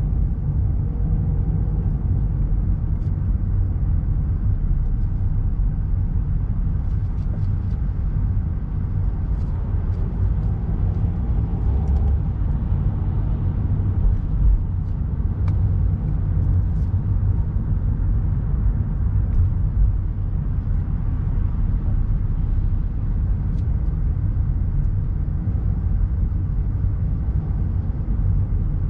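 Steady low road rumble of a car travelling at expressway speed, heard from inside the cabin, with a few faint ticks.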